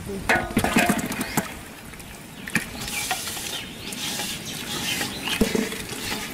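Long metal ladle stirring curry in a large aluminium cooking pot, scraping and clinking against the pot's side and bottom, with several sharp clinks spread through the stirring.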